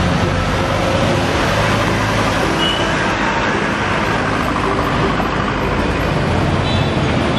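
Road traffic passing close by: motorcycles and a light truck driving past, engines running with steady tyre and road noise.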